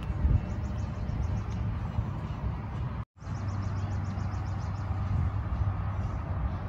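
Steady low rumble of outdoor background noise, such as traffic or wind, with two short runs of rapid, faint high chirps. The sound cuts out for a moment about three seconds in.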